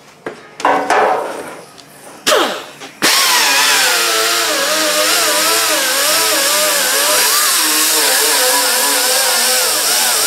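Angle die grinder with a fiber disc stripping old paint off a steel car fender. It gives two short bursts that spin down in pitch, then about three seconds in it runs continuously under load, its pitch wavering as the disc bears on the panel.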